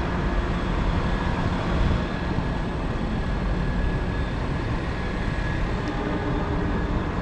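Steady city street traffic noise: a continuous rumble of vehicles with no single event standing out.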